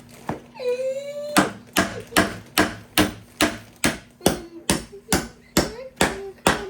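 Even, rhythmic knocking, a little over two strikes a second, with a short rising cry about half a second in.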